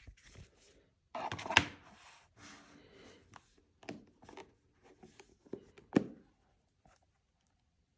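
Hands handling jewellery-box packaging: rustling with a series of sharp clicks and knocks. The loudest come a bit over a second and a half in and again about six seconds in.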